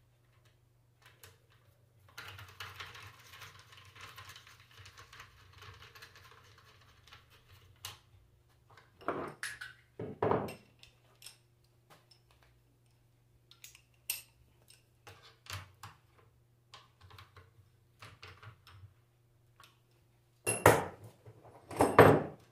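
Metal parts and tools clinking and knocking on a workbench during alternator reassembly, with scattered light clicks, a few seconds of hissing noise near the start, and two louder pairs of knocks, one in the middle and one near the end. A faint steady low hum sits underneath.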